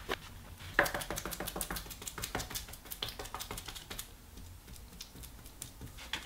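A brush dabbing epoxy into wet carbon fiber cloth: a quick, irregular run of light clicks and sticky taps, densest in the first few seconds, then thinning out.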